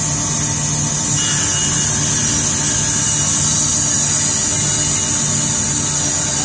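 CNC band saw running steadily as its blade cuts a curve through a thick laminated wood block. It makes a constant low hum under a steady high-pitched whine.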